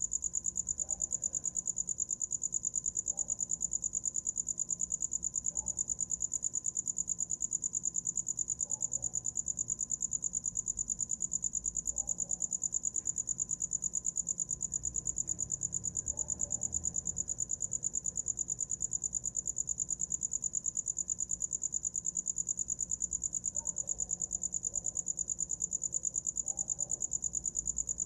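A cricket singing an unbroken high-pitched trill, a rapid, even pulsing that holds steady in pitch and loudness.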